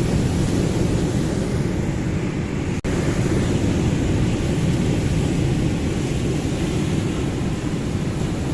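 Ocean surf as a steady, dense low rush with no distinct wave breaks standing out. It cuts out for an instant about three seconds in.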